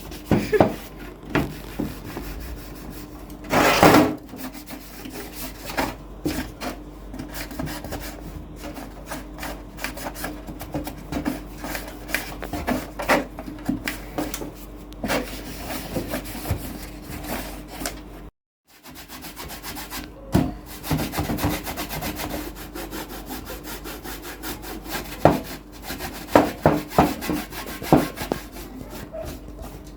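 Repeated short rubbing and scrubbing strokes, as of cleaning the dusty casing of an old radio cassette recorder by hand, with a faint steady hum beneath. The sound cuts out briefly a little past halfway.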